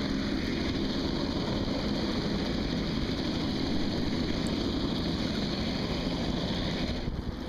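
Small outboard motor of a motorized canoe running steadily under way, with water and wind noise; the sound dips briefly near the end.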